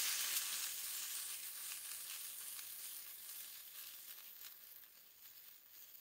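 Water drops sizzling and evaporating on a hot stove hotplate, the hiss fading steadily away over about five seconds, with a few faint crackles.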